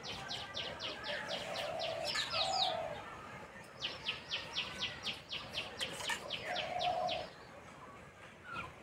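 A bird calling: a rapid run of high chirps, about four a second, that stops near three seconds in and starts again about a second later for another three seconds, with a few short lower notes alongside.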